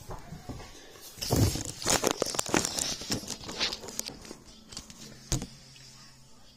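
Handling noise of a handheld phone: a dense run of crackles and scrapes as fingers rub near its microphone, lasting about four seconds and ending with one sharp click.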